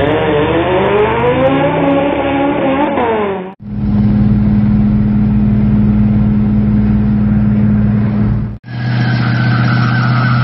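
Three quick cuts of car sound. First a car launching down a drag strip, its engine note climbing and dropping as it accelerates. About three and a half seconds in it cuts to a steady engine hum while cruising on an open road. About eight and a half seconds in it cuts to a second-generation Plymouth Barracuda fastback doing a burnout, its engine running steadily under a high, wavering tire squeal.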